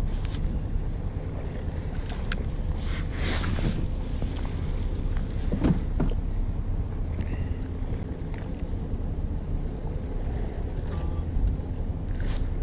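Charter fishing boat's engine running with a steady low hum, with some wind on the microphone and a couple of short knocks.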